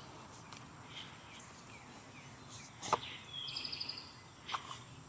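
Steady high-pitched cricket chorus, with a few light clicks from a small product box being opened and handled. A short rapid trill comes a little past halfway.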